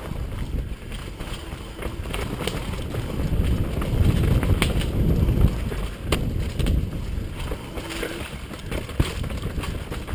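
A mountain bike rolling fast down a rough dirt trail, heard as a loud rumble with wind buffeting the microphone. Frequent sharp knocks and rattles come as the bike hits roots and rocks. The rumble swells for a couple of seconds around the middle.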